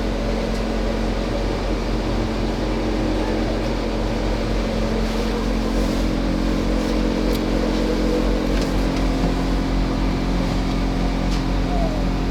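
A motor running with a steady, unchanging hum on a few fixed pitches.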